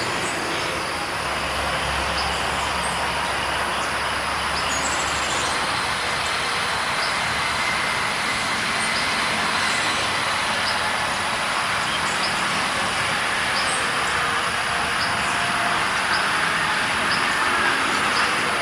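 Steady rushing noise of passing motor traffic, with a low engine hum in the first few seconds and faint short high ticks repeating about every second or so.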